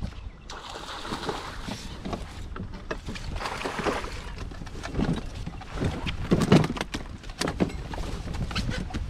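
Hooked bass splashing at the water's surface as it is fought beside the boat: a burst of splashing about half a second in and another around three to four seconds in. Scattered clicks and knocks come in between.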